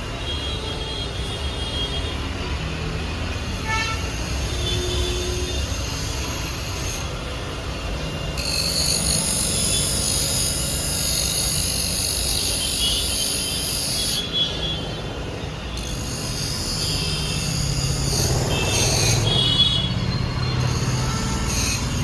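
HMT GTC28 tool and cutter grinder running under power: a steady motor hum, joined by a high-pitched whine about eight seconds in that drops away and comes back a couple of seconds later.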